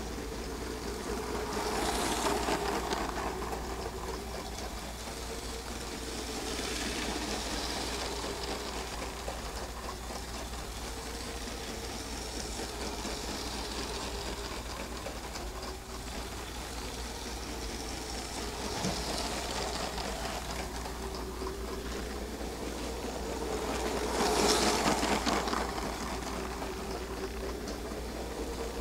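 Lego high-speed passenger train running laps on plastic track: the steady whir of its electric motor and wheels, swelling louder several times as the train passes close by.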